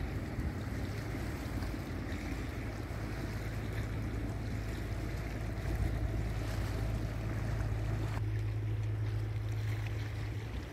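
Steady low drone of a boat's motor out on the water, growing a little louder in the second half, over a wash of wind and water.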